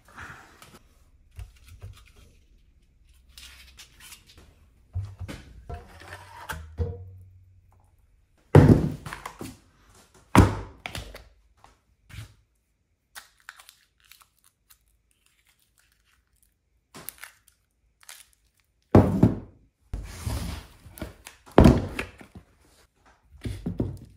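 Cured epoxy resin castings of hawthorn burl being set down and handled on a workbench: a few loud, heavy thunks, with quieter knocking and clatter between them.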